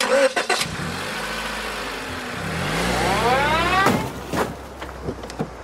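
A car engine starts and runs, and a rising whine builds. About four seconds in there is a sharp crash, followed by a few small knocks: a car backing into another car.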